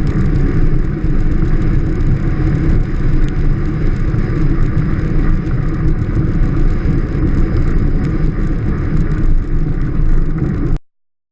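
Steady rumble of a Strada Carbon velomobile rolling along the road, tyre and road noise carried through its shell. It cuts off suddenly near the end.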